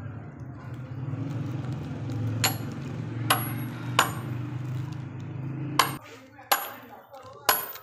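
Sledgehammer blows on a steel wedge set in a log to split firewood: six sharp metallic clanks, roughly a second apart, starting about two and a half seconds in. A steady low hum underneath cuts off suddenly about six seconds in.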